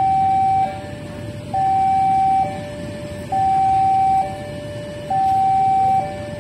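Electronic two-tone siren stepping back and forth between a higher and a lower note, each held just under a second, the higher note louder, over a low steady rumble.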